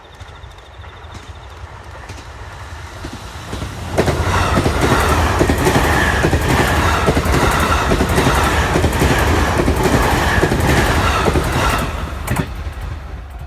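E257 series electric train passing close by: it rises for about four seconds, runs loud with regular clacks of the wheels over the rail joints, then fades in the last second or so.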